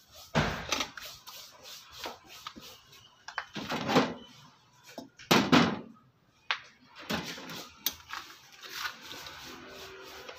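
Irregular knocks, bumps and clicks as the wiring and a small plastic part on the side of a disassembled electric rice cooker base are handled. A few of the knocks are much louder than the rest.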